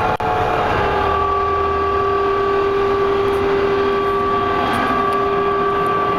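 Inside the cabin of a Chevrolet G20 conversion van with a 350 V8 while it is being driven: a steady drone of engine and road noise with a few held whining tones.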